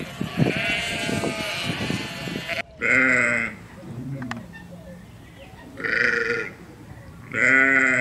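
Sheep bleating: a flock's overlapping bleats that cut off suddenly about two and a half seconds in, followed by three separate loud bleats, the last one near the end.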